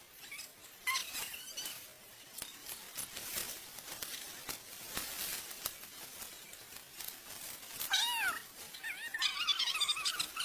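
An animal calling: a wavering cry that rises and then falls about eight seconds in, followed by more short pitched calls. Light clicks and rustles come before it.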